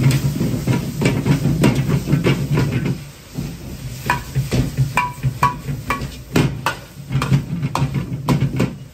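Metal ladle clanking and scraping against a carbon-steel wok as fried rice is stirred and tossed, with quick irregular strikes, some ringing briefly, over the hiss of the frying rice and the steady hum of the gas wok burner.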